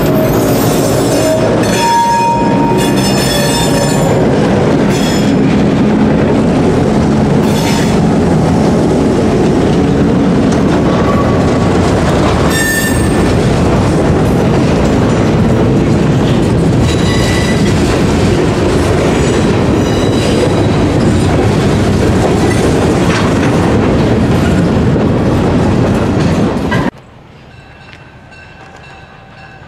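Freight train rolling past close by: steel wheels clacking over the rail joints, with brief wheel squeals now and then. The sound cuts off suddenly near the end, leaving a much quieter background.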